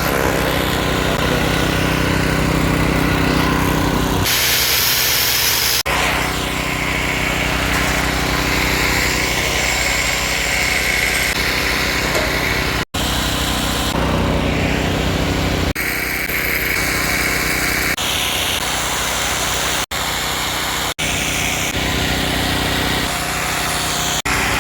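Small engine running steadily with road noise, heard in several short clips joined by abrupt cuts.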